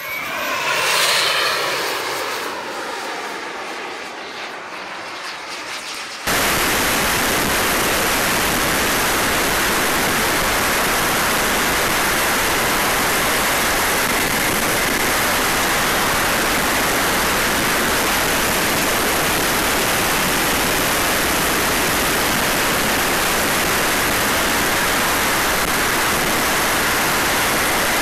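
Model turbine jet (Jets-Munt M70XBL) passing low with a whine that drops in pitch as it goes by, loudest about a second in. About six seconds in, the sound cuts to a steady, loud rush of airflow and turbine noise heard from a camera on board the jet in flight.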